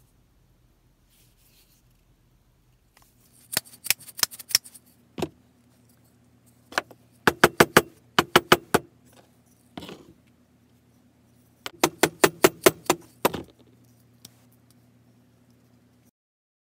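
Rapid sharp taps of a mallet driving a small steel ball peen hammer head down onto its wooden handle, in several quick bursts of about five to eight blows with a few single taps between.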